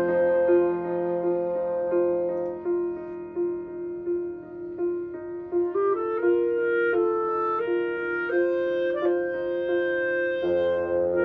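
Live chamber music: a clarinet plays a flowing melody over a piano's evenly repeating figure, about two notes a second. A lower sustained note comes in near the end.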